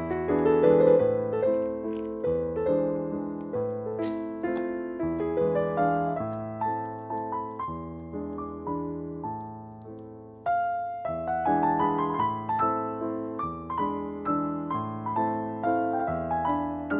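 Background piano music: notes struck and left to fade over low bass notes, with a brief drop and a new phrase about ten and a half seconds in.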